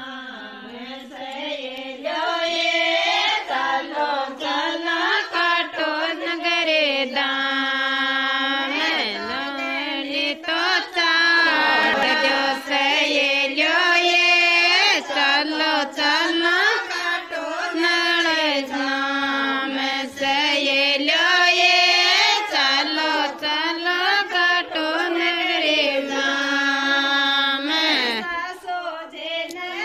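A woman singing a Rajasthani folk devotional song to Khatu Shyam ji, a single voice holding and bending long sung notes.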